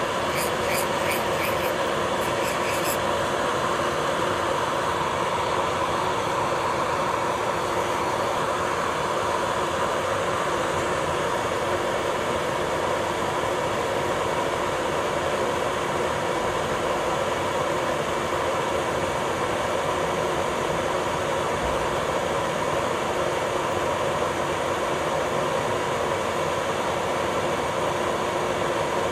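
Electric nail drill (e-file) running steadily at around 5,000 rpm, its bit grinding over the nail plate and working the cuticle away from the nail. A few light ticks sound in the first few seconds.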